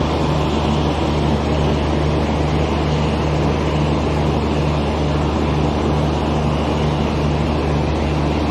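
Steady low mechanical hum from a halted passenger train, with a faint even pulse about twice a second, under the general noise of a busy station platform.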